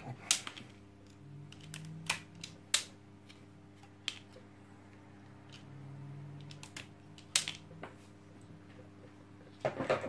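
A hand wire stripper clicking and snapping as it is squeezed on a vacuum cleaner's power cord to strip the insulation. About half a dozen sharp clicks come at irregular intervals, over a faint steady hum.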